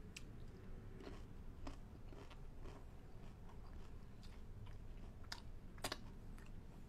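A person chewing a mouthful of food close to the microphone: small wet clicks and crunches, with the sharpest couple of clicks near the end.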